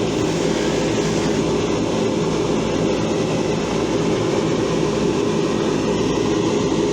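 Steady running of a motor-driven wheel working rust off steel pliers, a loud even grinding whir.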